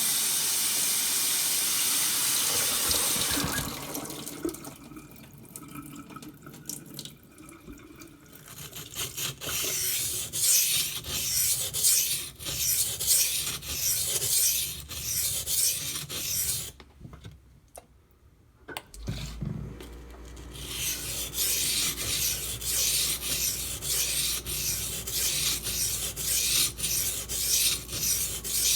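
Knife blade stroked rapidly back and forth across a wet coarse water stone, in two long runs of even, rhythmic scraping with a short pause between; this is grinding to raise a burr on the second side of a Spyderco Salt H1-steel blade. Near the start, a few seconds of steady running water.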